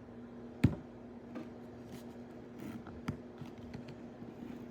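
Objects being handled close by. A sharp knock comes about half a second in and a smaller one about three seconds in, with light rustling and clicking between them, over a steady low hum.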